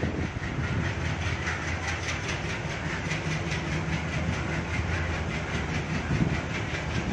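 Train running along the track: a steady rumble and low hum with wheels clattering over rail joints in a quick, even rhythm.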